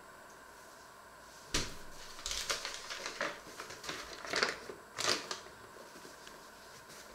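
A paper flour bag crinkling and rustling as it is handled, in a run of sharp rustles lasting about three seconds, after a single knock about a second and a half in.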